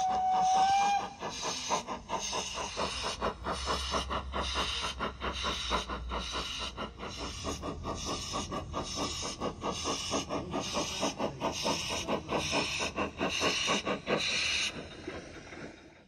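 Steam sound card of a Bachmann G-scale GWR 45xx Prairie tank locomotive. It gives a short whistle right at the start, then a steady, regular exhaust chuff with hissing steam as the model runs. The chuffing stops about a second before the end.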